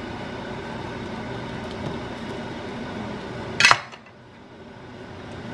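A steel cleaver on a wooden cutting board: one sharp clack about three and a half seconds in, over a low steady background, as the blade is finished cutting through a ball of noodle dough and meets or is set down on the board.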